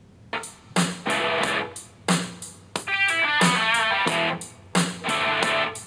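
Guitar-led song with a steady drum beat played through a Logitech UE Mobile Boombox Bluetooth speaker at about half volume. It starts about a third of a second in.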